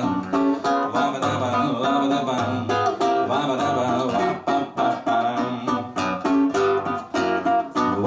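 Acoustic guitar playing a song's instrumental introduction: a quick, steady run of plucked notes and chords.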